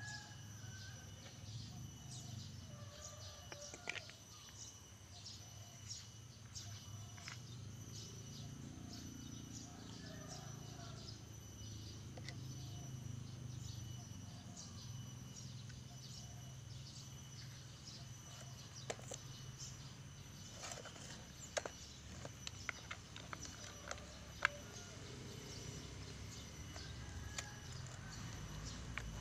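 Quiet outdoor ambience of steady, high-pitched chirping about twice a second over a low hum. In the second half there are a few sharp small clicks and taps from handling a sanding backing pad and a cordless drill.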